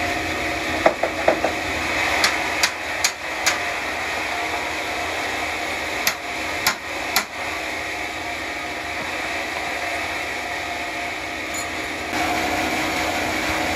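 Sawmill machinery running steadily while a dozen or so sharp knocks land in quick groups during the first seven seconds, four of them evenly spaced about two and a half a second. The running grows a little louder near the end.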